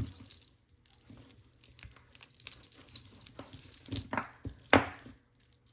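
Loose costume jewelry being handled and sorted by hand: soft rustling and small clicks of chains and metal pieces, with two sharper knocks about four seconds and nearly five seconds in.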